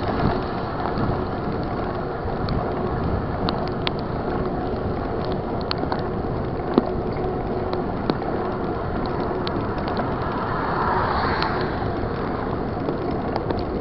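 Mountain bike being ridden over rough ground: a steady rumble of tyre and wind noise with scattered small clicks and rattles from the bike, and one sharper knock about halfway through.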